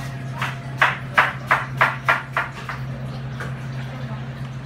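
A fillet knife makes a quick run of about seven short scraping strokes, roughly three a second, as it works through a fish on a plastic cutting board. A steady low hum from kitchen equipment runs underneath.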